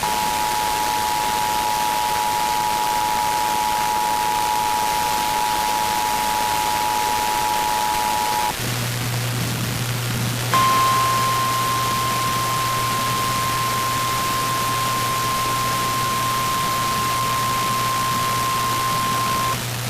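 Emergency Alert System two-tone attention signal, two steady tones sounding together for about eight and a half seconds, over constant hiss. A low hum then sets in, and after a short gap a single steady warning alarm tone of the kind NOAA Weather Radio sends before a warning sounds for about nine seconds.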